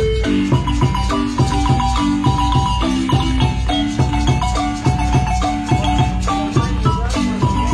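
Marimba music: rapid mallet notes and held tremolo notes over a steady low bass, in a lively, even dance rhythm.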